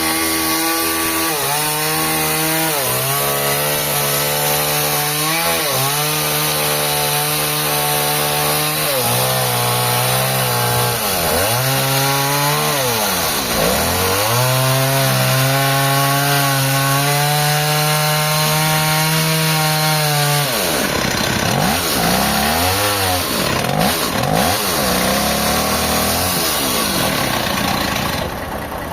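Engine-driven saw cutting wood. Its engine pitch steps up and down and dips sharply and recovers several times, and the sound turns rougher and noisier in the last several seconds.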